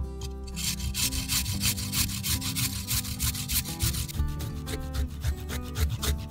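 Peeled fresh ginger root rasped against a fine stainless-steel hand grater in quick, rhythmic scraping strokes, starting about half a second in.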